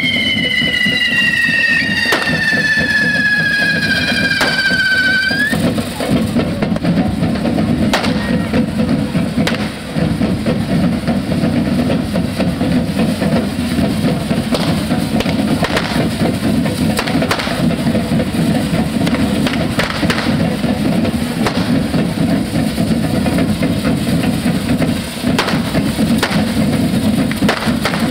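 A correfoc devils' troupe's fireworks and drums. A whistling firework falls steadily in pitch for about five seconds, then hand drums play continuously, with sharp bangs and cracks among them.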